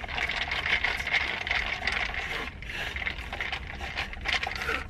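A plastic straw stirring a drink in a plastic cup, rubbing and scraping against the inside of the cup, with a short break about halfway through.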